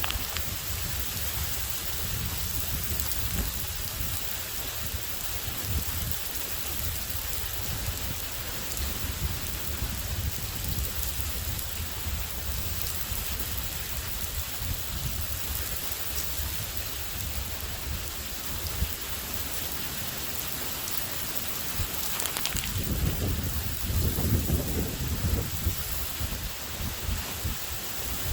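Steady rain falling during a thunderstorm, with a low rumble of thunder rolling for a few seconds near the end.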